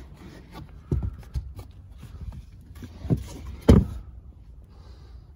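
A few dull thumps and knocks from handling a Citroen C4 Grand Picasso's fold-away third-row seats in the boot, the loudest about two-thirds of the way in.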